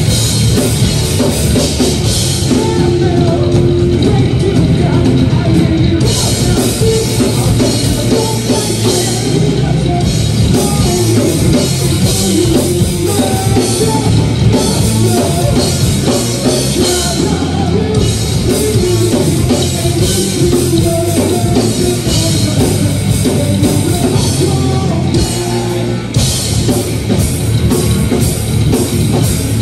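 Rock band playing live: electric guitars and a drum kit driving hard, with a singer's vocals on top.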